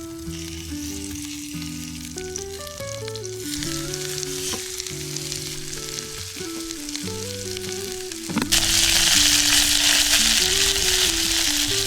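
Food frying in a pan, sizzling, over background music; the sizzle turns much louder about eight and a half seconds in.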